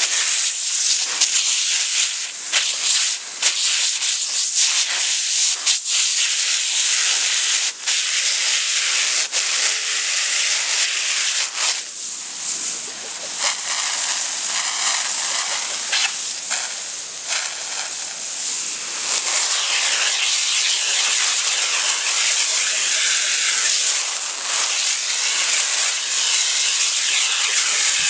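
Garden-hose pressure-washer wand spraying a jet of water onto a wooden chicken roost: a loud, steady hiss with a few brief dips as the spray moves over the wood.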